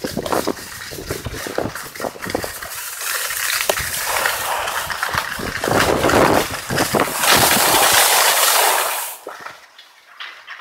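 Skis sliding and scraping over packed snow, with wind rumbling on the microphone. The scraping hiss swells loudest from about four to nine seconds in, then drops off sharply.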